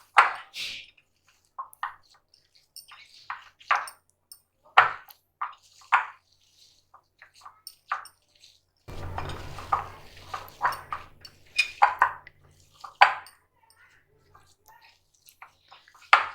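Hands kneading a ground mutton and chana dal kebab mixture in a metal bowl: scattered soft squishes and sharp clinks against the bowl. A low hum joins in for a few seconds in the middle.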